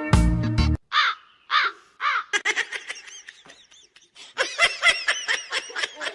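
A series of short, high-pitched animal calls, each rising and falling in pitch. A few come spaced apart, then a quick run of many from about two seconds in. Music cuts off just under a second in.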